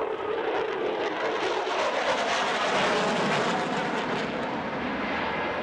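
F-16 Fighting Falcon jet flying a demonstration pass in afterburner, its roar building to its loudest about two to four seconds in, with some crackle, then easing off.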